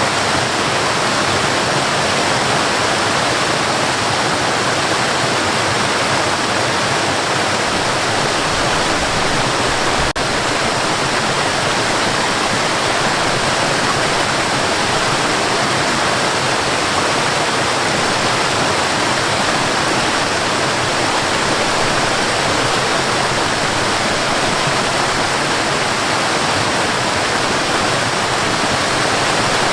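Cascading water rushing steadily, like a small waterfall, with a brief break about ten seconds in.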